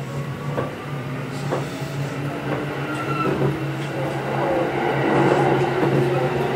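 Kintetsu 8810 series electric train heard from inside the car while running. A steady low hum sits under a motor and gear whine that slowly rises in pitch, and the wheels click over rail joints now and then. It grows louder in the second half.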